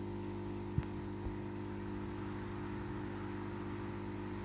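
Steady low electrical hum over a faint hiss, with two small clicks a little under a second in and again half a second later.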